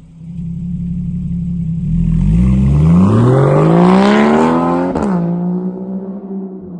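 Straight-piped 2013 Porsche Boxster 981's 2.7-litre flat-six idling, then revving up smoothly for about three seconds. At the peak the throttle comes off with a single sharp exhaust pop, and the engine drops quickly back to a steady idle.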